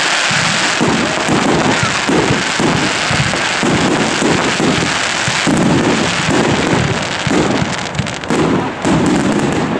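Fireworks finale: a rapid string of firework launches and bursts, about two bangs a second, over a continuous hiss and dense crackling from fountains and crackling stars.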